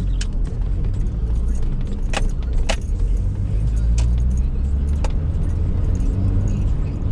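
Steady low rumble of a truck on the road, heard from inside the cab, with about five sharp clicks or rattles scattered through it.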